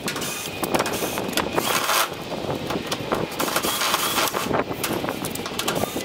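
Fast-forwarded sound of screws being taken out of the top panel of an outdoor air-conditioner condenser unit: a dense run of short clicks over steady noise.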